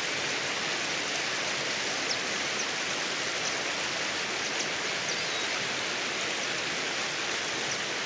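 Steady rush of river rapids: an even, unbroken hiss of running water.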